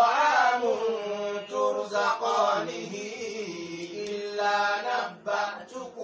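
A man's voice chanting a Qur'anic recitation in Arabic, drawn out in long melodic held notes with short breaks between phrases.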